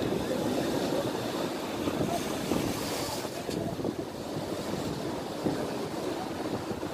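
Rough sea waves of a spring high tide surging and splashing against a sea wall, with wind buffeting the microphone. A wave breaks and splashes more strongly about two to three seconds in.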